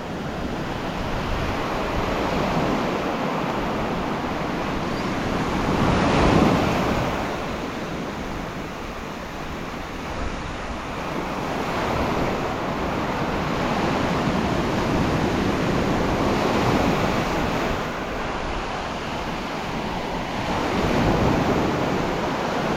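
Ocean surf washing onto the beach, the noise swelling and fading as waves come in, loudest about six seconds in, with wind on the microphone.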